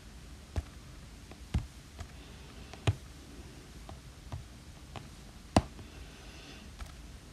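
Stylus tip tapping on an iPad Pro's glass screen while drawing: irregular sharp taps, the loudest about five and a half seconds in, with a couple of faint scratchy strokes between.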